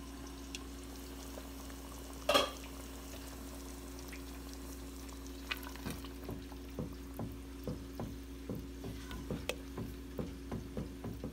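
Food cooking in pans on the stove: irregular soft pops and crackles of bubbling and frying that come thicker from about halfway through, with one clink about two seconds in.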